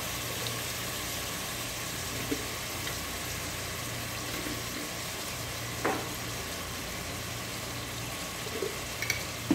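Cubed beef with onion and garlic frying in oil in a stainless steel pot, a low sizzle over a steady low hum. A single sharp knock, a utensil against the pot, about six seconds in, and a couple of light clicks near the end.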